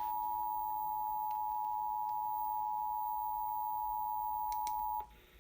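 Emergency Alert System attention signal: two steady tones sounded together, cutting off suddenly about five seconds in.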